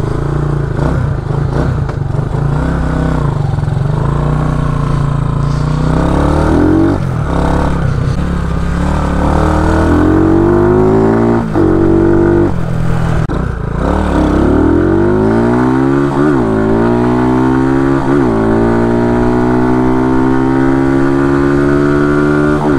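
RPS Condor 150cc single-cylinder four-stroke motorcycle engine accelerating through the gears, rising in pitch with several brief dips at the shifts, then running steadily at cruising speed near the end. It runs on a freshly fitted Nibbi 26 mm carburettor whose pilot jet the rider judges too rich.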